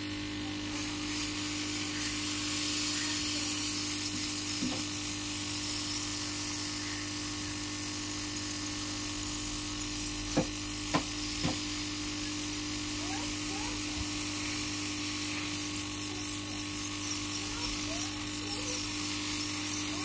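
Hot-air rework gun running with a steady blowing hum and hiss as its nozzle heats a phone's USB charging port to melt the solder. Three sharp clicks come a little past halfway.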